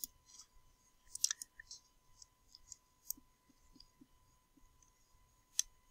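Faint computer mouse clicks, a handful scattered across a few seconds, the clearest about a second in and near the end.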